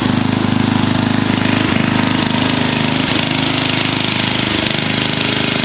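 JCPenney garden tractor's small engine running steadily with a rapid, even firing beat. The sound cuts off abruptly near the end.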